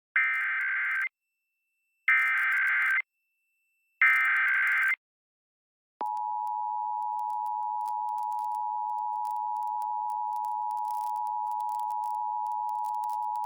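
Emergency Alert System header and attention tones opening a Required Monthly Test: three buzzing, screeching SAME data bursts, each about a second long with a second's gap between them. About six seconds in, the two-tone EAS attention signal starts, a steady harsh tone of two close pitches sounding together, and it carries on.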